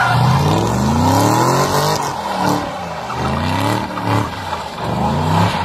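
Chevrolet Camaro doing a burnout: the engine revs up and down in about four surges while the spinning rear tyres squeal, the squeal strongest at the start.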